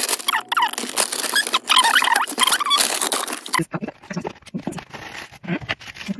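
Paper takeaway bag and burger wrapper rustling and crinkling as they are torn open and unfolded, with small squeaks of paper. Busiest in the first three seconds or so, then softer, separate crinkles.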